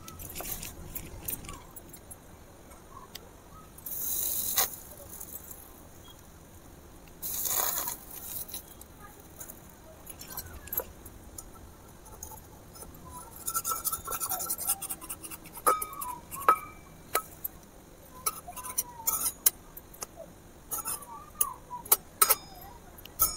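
A tiny metal spatula clicking and scraping against a miniature iron kadai while a small pancake is cooked and turned. There are light clicks and taps throughout and two brief hisses in the first eight seconds.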